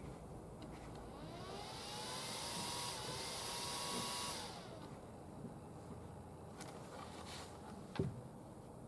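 A small electric fan spins up with a rising whine and a hiss of moving air, runs steadily for about three seconds, then winds down. A few light clicks and a knock follow near the end.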